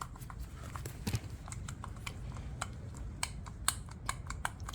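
Irregular light clicks and knocks from a removed front wheel hub bearing assembly being worked by hand. The play and clicking are the sign of a worn-out bearing.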